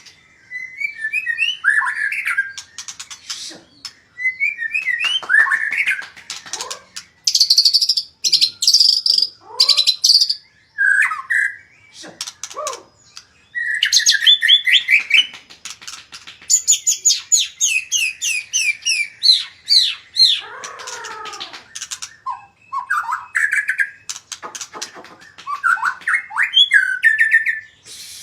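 White-rumped shama (murai batu) singing a long, varied song: clear whistled phrases that glide up and down, mixed with fast runs of repeated notes and harsher chattering notes, in bursts with short pauses between them.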